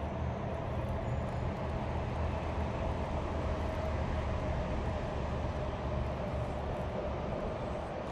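Steady low rumble of a distant vehicle, with a low hum underneath that holds unchanged throughout.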